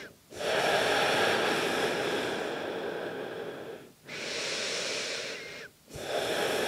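A person taking slow, deep, audible breaths in a yoga pose, each breath a long airy rush of air. One long breath starts just after the beginning, a shorter one about four seconds in, and another near the end, with brief pauses between them.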